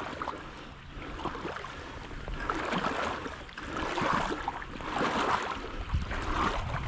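Marsh water sloshing and splashing in swells about once a second, as if someone is wading through it.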